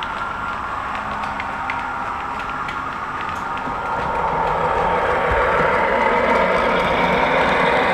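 00 gauge model diesel multiple unit running along the layout's track, with a steady drone and sharp clicks of its wheels over the rail joints. It gets louder about four seconds in as the train comes close.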